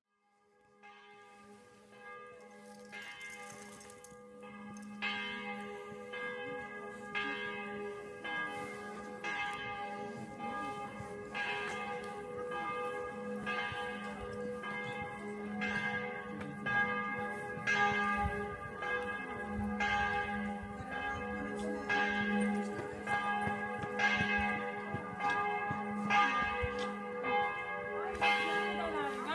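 Church bells ringing a full peal: several bells sounding together, with overlapping strokes about once a second over long ringing tones. The ringing swells up over the first few seconds.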